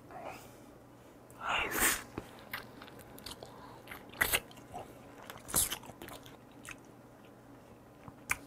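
Close-miked mouth sounds of a person eating raw deep-sea shrimp sashimi: soft wet chewing and smacking with scattered sharp clicks. There is a louder breathy rush about one and a half seconds in.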